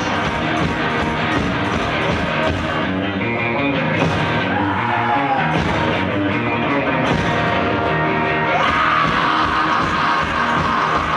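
A live rock duo playing: electric guitars over a steady drum beat, with a voice singing.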